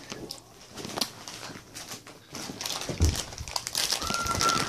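Rustling and knocking as the phone is moved about over bedding and clothing, with a louder thump about three seconds in. Near the end there is a brief high steady squeak.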